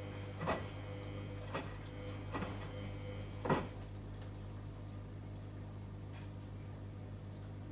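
Samsung Eco Bubble front-loading washing machine draining during a quick wash cycle: a steady low hum from the drain pump. Sharp knocks come about once a second as the drum turns the small load. A higher hum cuts out about halfway through, just after the loudest knock.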